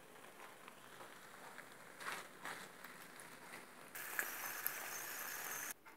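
Eggplant and tomato stew faintly crackling as it simmers in a frying pan, with a couple of soft knocks about two seconds in. About four seconds in, a louder, steady sizzle comes in and cuts off suddenly just before the end.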